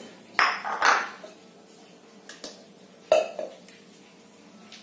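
A plate clattering against a tiled floor: a few short knocks and scrapes, the sharpest about three seconds in.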